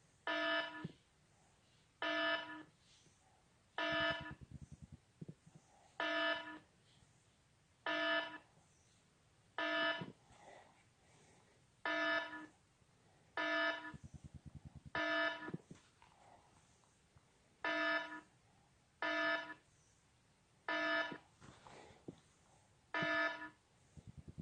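Electronic alarm beep from a cartoon soundtrack: a buzzy half-second tone repeating roughly every two seconds, with a faint low rattling buzz between some of the beeps.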